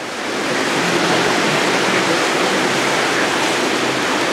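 Steady, even rushing noise of busy shopping-centre ambience, fading in over the first second.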